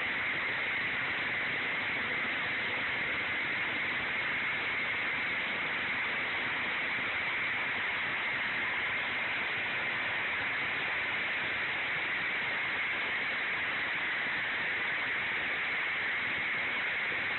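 Large walk-behind concrete floor saw with a giant diamond blade, its engine running under load as the water-cooled blade cuts through a concrete floor. It makes a steady, unchanging grinding hiss with a high-pitched edge.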